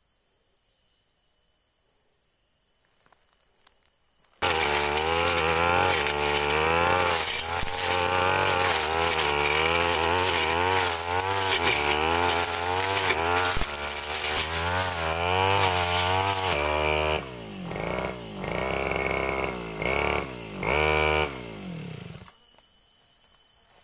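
A steady high insect chorus, then after about four seconds a backpack brush cutter's engine comes in suddenly at full throttle, its pitch wavering as it cuts through thick brush. In the last third the revs drop and climb in several short bursts before settling to a low idle near the end.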